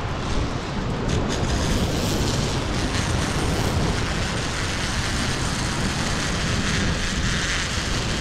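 Steady rushing of whitewater rapids, mixed with wind buffeting the helmet-mounted camera's microphone.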